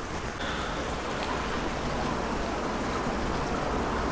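Indoor fountain running: water from a row of small jets splashing into a long basin, a steady rushing noise.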